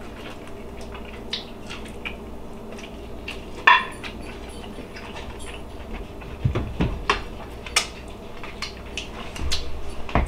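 A person eating a bone-in beef short rib: chewing and mouth noises with scattered small clicks, a sharp knock about four seconds in, and a run of louder clicks a few seconds later.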